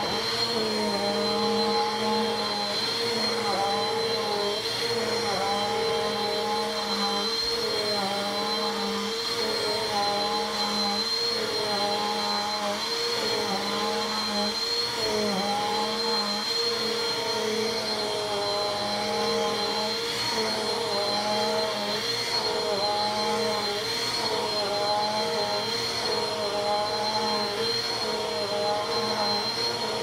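Corded upright vacuum cleaner running steadily with a high whine, its motor note dipping slightly every second or two as it is pushed back and forth across the floor.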